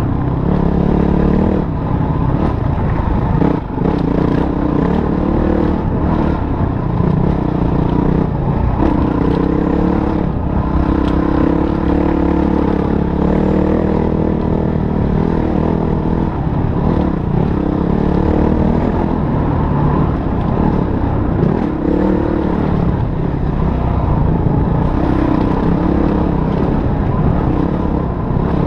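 Motorcycle engine running under way, its pitch rising and falling with the throttle, over a steady bed of rough clattering and scraping.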